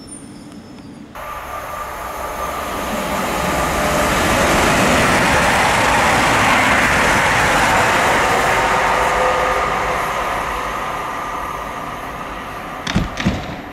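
East Midlands Railway Class 222 Meridian diesel multiple unit passing at speed. The sound cuts in about a second in, swells to a loud rush in the middle, then slowly fades, with a few sharp thumps near the end.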